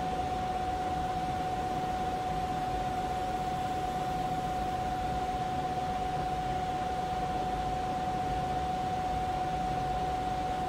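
Vertical milling machine's spindle running at constant speed with a drill bit in its chuck: a steady high tone over even motor and drive noise.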